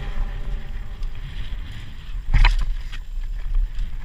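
Mountain bike rolling over a dirt trail, heard through a mounted action camera: a steady low rumble of tyres and wind on the microphone, with a sharp knock from a bump about two and a half seconds in.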